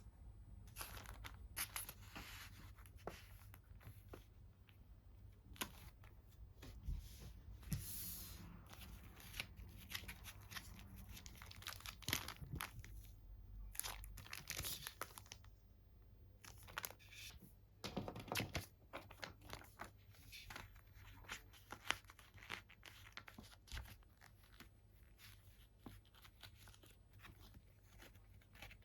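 Plastic packaging and sleeves crinkling and rustling as they are handled, with scattered small crackles and clicks and a longer rustle about two-thirds of the way in.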